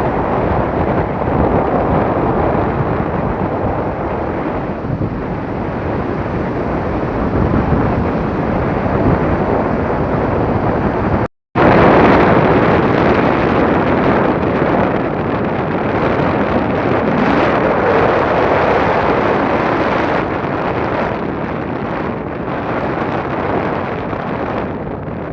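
Steady loud rushing of wind on the microphone, cut off for a moment a little past the middle.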